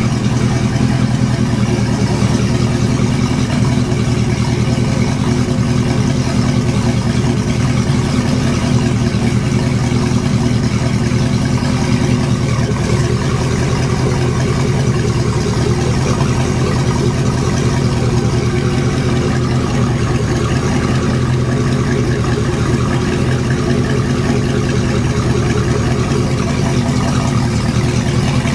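Rebuilt 2008 Volvo Penta 5.7L GXi-J marine V8 engine running at a steady speed, with no change in revs.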